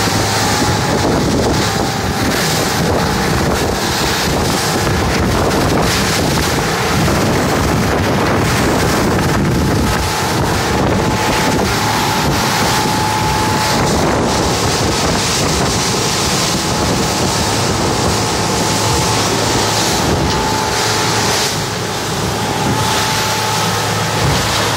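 Motorboat running at speed over open water: a steady engine drone under rushing water, with heavy wind noise buffeting the microphone.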